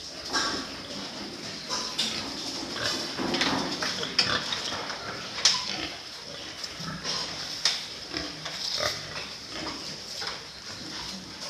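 A group of pigs grunting, with scattered sharp knocks and clicks and a steady high-pitched tone underneath.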